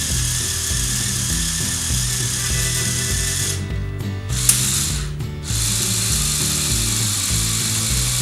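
Small electric motor of a plastic building-brick tow truck whirring as it drives the crane and outrigger functions through plastic gears. The whirring stops twice for a moment in the middle, with a sharp click between the stops, as the drive is switched from lowering the boom to lowering the support legs, then runs on steadily. Background music plays underneath.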